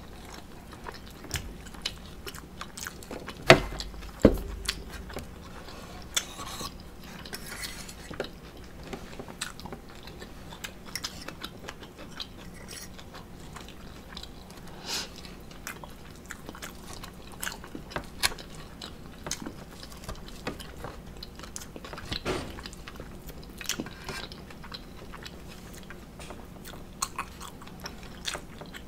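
Close-miked chewing and mouth sounds of someone eating an omelet, with a metal fork clicking and scraping against a ceramic plate. A couple of louder knocks come about three and four seconds in.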